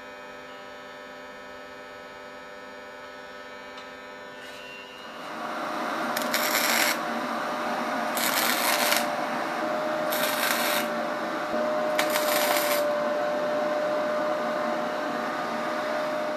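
A steady electrical hum for about five seconds, then electric arc welding of a tubular cargo rack to a pit-bike frame: the arc crackles and sizzles for the rest of the time, with four louder spurts.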